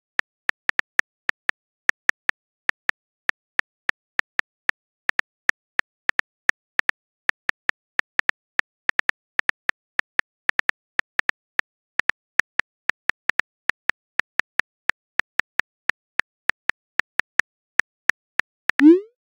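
Phone keyboard clicks as a text message is typed out, an irregular tapping of about three or four clicks a second. Near the end comes a short rising swoosh of the message being sent.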